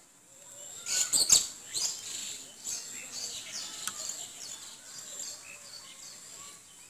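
Small birds chirping, a string of short falling chirps, with a few sharp clicks about a second in.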